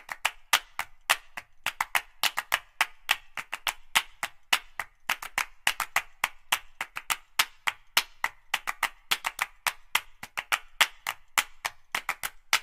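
Fast, uneven run of sharp percussive clicks like claps or wood-block hits, about five a second, forming a clap-and-click backing-music track.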